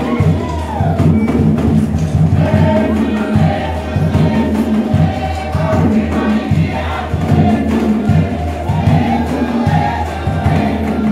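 Cook Islands song: a group of voices singing together over music with a steady, pulsing low beat.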